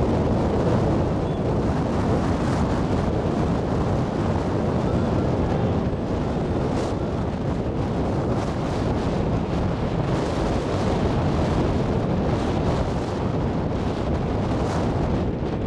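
Wind buffeting a camcorder microphone: a steady, dense low rumble with no break.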